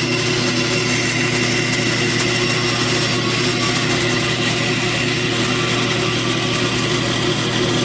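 Electric power tool motor running steadily at constant speed, a continuous hum with a fixed tone, most likely the saw used to shorten the plastic drain pipe.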